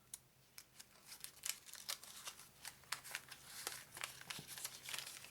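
Wax-paper wrapper of a 1987 Topps trading card pack crinkling as it is pulled open by hand, a faint run of small crackles and clicks.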